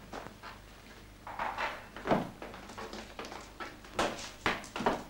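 A few knocks and clatters of household handling, such as a cupboard or drawer being worked: one loud knock about two seconds in, and several sharper knocks near the end.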